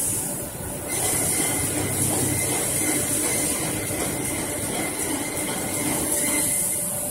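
Flow-wrapping (pillow-type) packing machine running steadily, a continuous mechanical clatter with a strong high hiss and a faint steady whine over it.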